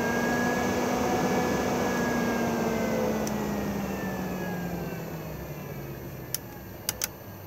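Omnivent roof vent fan running, its motor hum and blade tone rising in pitch, holding, then winding down and fading over a few seconds as its speed setting is changed. Three sharp clicks come near the end as the control buttons are pressed.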